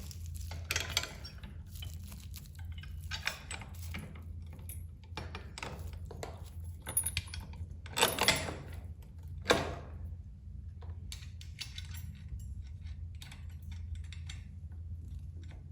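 Metal hardware and hand tools clinking and rattling in irregular clicks as a bolt is fitted through the saddle-stay clamps and its nut is snugged down, with a steady low hum underneath.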